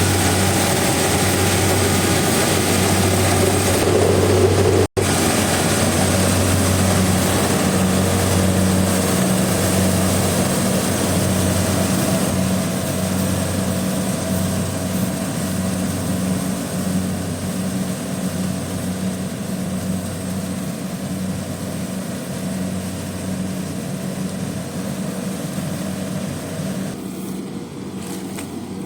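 Kubota DC70 combine harvester's diesel engine running steadily with a low drone, with an instant's dropout about five seconds in and a slight fade near the end.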